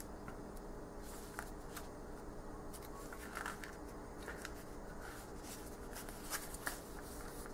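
Pages of a small paperback tarot guidebook being leafed through by hand: faint, soft paper rustles and light ticks, a little louder about three and a half seconds in and again near six and a half seconds.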